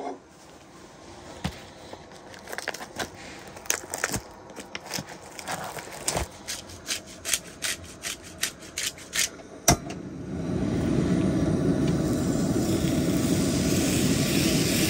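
Light ticks and rattles of seasoning being shaken onto a raw steak. About ten seconds in, a propane camp-stove burner comes on with a steady, even gas hiss that drowns out everything else.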